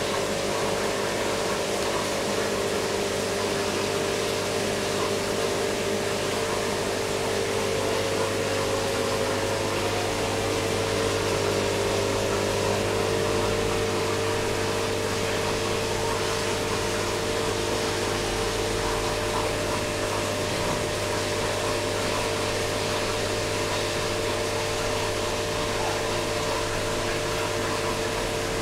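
Aquarium pump and aeration running: a steady hum under a constant hiss of air bubbling through the tank water.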